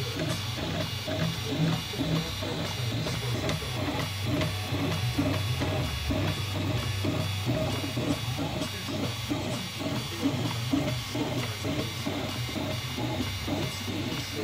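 3D printer running, its stepper motors whining in tones that keep stepping between pitches as the print head darts back and forth, with a fast, busy chatter from the moving axes.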